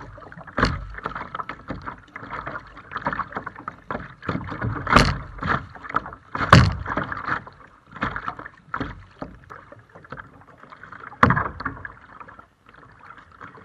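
Stand-up paddle strokes and water slapping against the paddleboard, close to the board. Irregular splashing, with louder slaps about 5, 6.5 and 11 seconds in.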